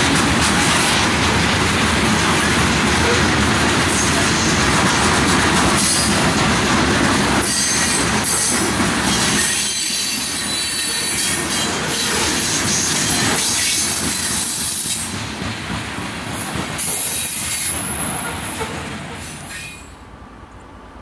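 Freight train of covered hopper cars rolling past close by: steady rumble of steel wheels with clicks over the rail joints and high wheel squeal coming and going. The sound drops away sharply near the end.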